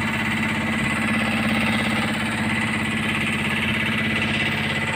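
Small engine running steadily at an even speed on an outrigger fishing boat, a constant hum with no change in pitch.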